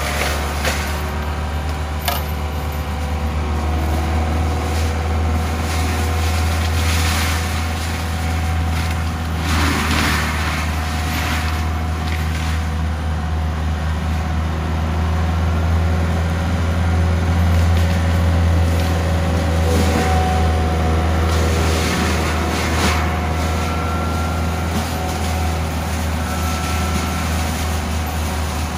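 CAT 299D3 compact track loader's diesel engine running steadily under load while its CIMAF mulcher head grinds brush, with repeated surges of shredding noise.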